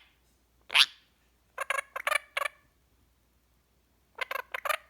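Indian ringneck parrot giving one sharp squawk about a second in. Two quick runs of short chattering calls follow, four or five in each, one in the middle and one near the end.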